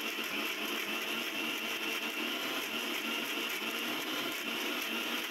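Electric mixer grinder running steadily, its steel jar grinding soaked urad dal with a little water into a thick batter.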